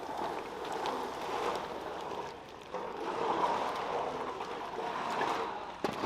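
Steady rushing of water, swelling and easing in level, with a few faint clicks.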